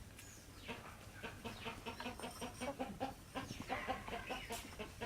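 A flock of chickens clucking while feeding, a quick run of short calls several a second.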